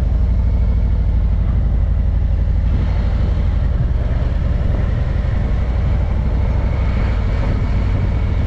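A car driving, with a steady low rumble of engine and road noise. A faint high tone comes in near the end.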